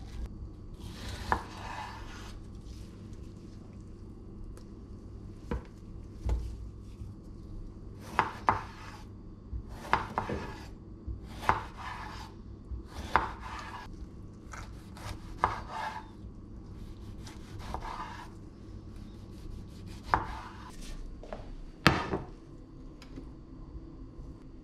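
Chef's knife cutting tomatoes on a wooden chopping board: a series of separate cuts, each ending in a knock of the blade on the board, one every second or two. One louder, sharper knock comes near the end.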